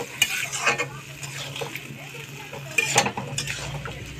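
Metal spatula stirring soya chunks and potatoes in a metal kadhai with a little water, scraping and knocking against the pan, with a few sharper clinks, the loudest about three seconds in. A low steady hum runs underneath.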